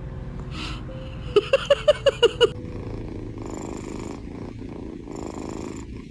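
A resting pet's steady purring rumble, swelling with each breath about every second and a half. Near the start, a quick run of six short high notes.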